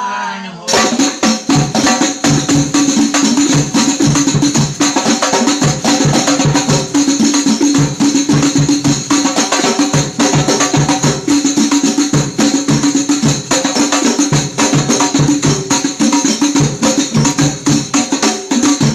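Sundanese kendang drumming with other percussion, a fast, dense pattern of pitched drum strokes over a steady metallic ringing, starting just under a second in after a counted-in lead.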